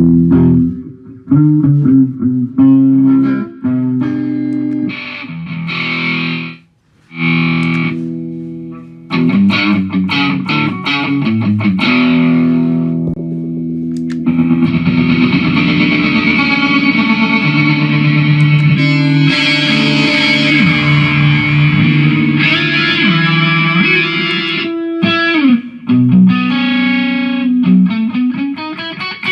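Electric guitar played through a Mooer GE150 multi-effects pedal with distortion: picked notes and chords with short stops, then a long held, brighter passage from about halfway to near the end.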